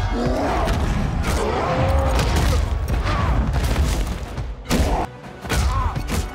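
Film fight-scene sound mix: heavy blows, booms and thuds over music, with a cluster of sharp hits near the end.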